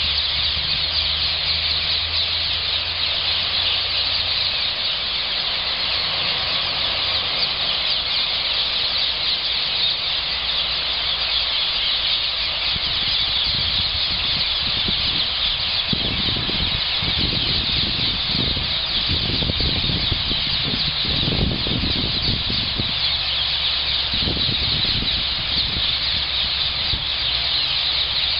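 A large roosting flock of rose-ringed parakeets screeching continuously, many shrill calls overlapping into one dense din. Wind buffets the microphone in gusts through the middle stretch.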